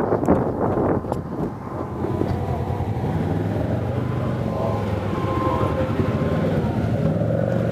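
Off-road vehicle engine running at a steady pace over a rough, rutted mud trail, with a few knocks and jolts in the first second or so.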